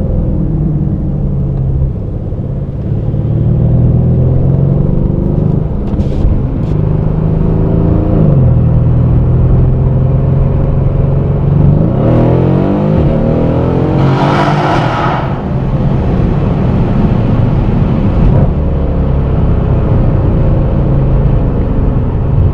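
Tuned Mercedes C63 AMG's 5.5-litre twin-turbo V8 running under way, heard from inside the cabin. The engine note dips briefly about eight seconds in, then rises in pitch as the car accelerates from about twelve seconds in, with a brief loud rushing hiss a couple of seconds later.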